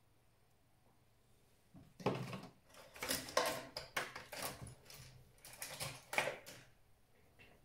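Irregular clicking, clattering and scraping of hard laptop parts being handled, starting about two seconds in and lasting about five seconds.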